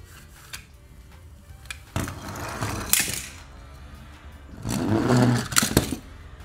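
Plastic and die-cast toy cars being handled and shifted in a cardboard box, scraping and clicking against each other and the cardboard: two spells of about a second each, one about two seconds in and a louder one about five seconds in.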